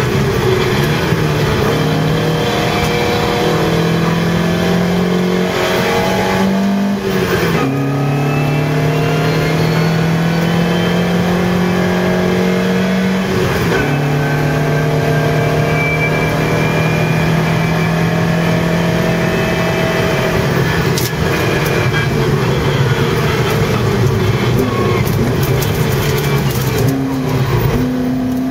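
Lotus Europa GT 1600's engine heard from inside the cabin, driven flat out in a hill-climb race. It pulls hard with its pitch climbing and drops sharply at upshifts about seven and fourteen seconds in.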